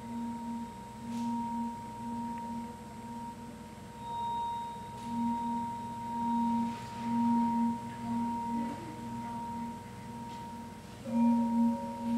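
Recorded contemporary concert music played back in a hall: a held, high ringing tone over a lower note that pulses about every two-thirds of a second. Near the end several new sustained, bell-like notes enter.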